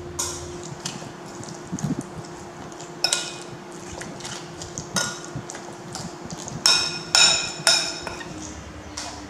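Metal spoon stirring and scraping minced-meat dumpling filling in a ceramic bowl, clicking against the bowl in an irregular run. Three loud ringing clinks come in quick succession about two-thirds of the way in.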